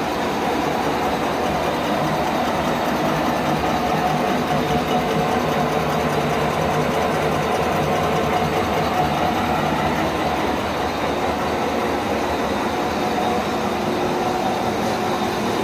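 Milling machine running steadily while it resurfaces a cylinder head: a continuous machine hum with several steady tones.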